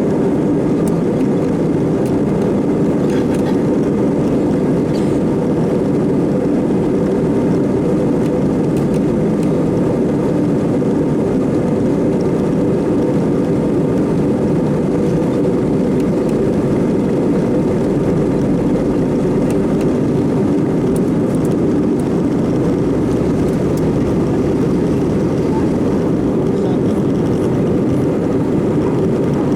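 Steady, unchanging drone of an Airbus A319-112's engines and airflow, heard from inside the cabin.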